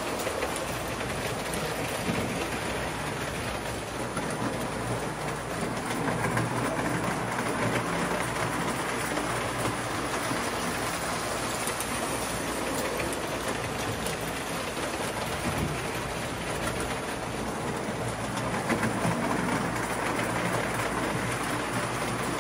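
Old toy electric model train running on its track: the steady whir of the locomotive's motor and the rattle of its wheels over the rails, growing louder twice as the train passes close.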